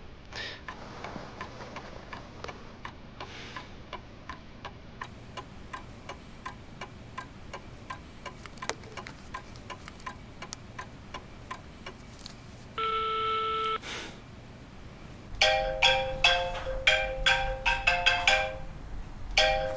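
Light, regular ticking for the first twelve seconds. Then a single one-second electronic beep, and from about fifteen seconds in a mobile phone ringtone: a loud marimba-like melody that repeats.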